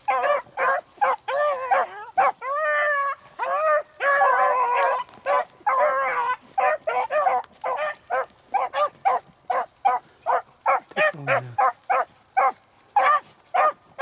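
Beagles baying on a rabbit's track, with long drawn-out bawls in the first half that give way from about halfway to a quick run of short chop barks, two or three a second.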